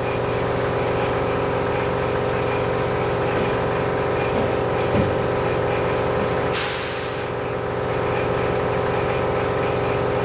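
A steady machine hum, a motor running continuously in a tire shop, with a short hiss of compressed air about six and a half seconds in.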